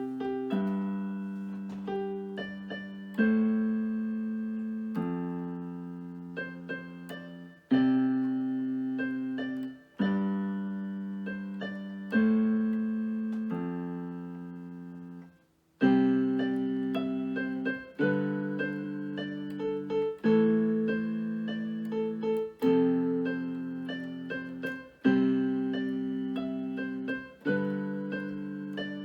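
Piano playing a slow, steady piece of held low chords, changing about every two seconds, with short higher notes above. The playing breaks off for a moment about halfway through and starts again more loudly.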